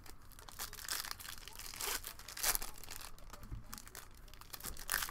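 Foil wrappers of Panini Prizm basketball hobby packs crinkling and tearing as they are handled and ripped open, in several brief bursts with short pauses between.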